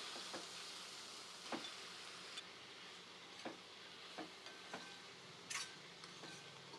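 Okra frying in a pan with a faint steady sizzle, while a spoon clicks against the pan about eight times at uneven intervals as it is stirred.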